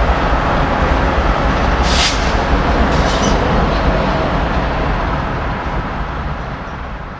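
Train rolling past with a loud, heavy rumble, with two brief high-pitched screeches about two and three seconds in. The sound fades away toward the end.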